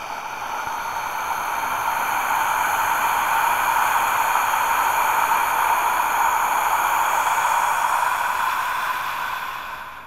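A loud, steady hiss of noise that swells up over the first couple of seconds, holds, and fades away near the end.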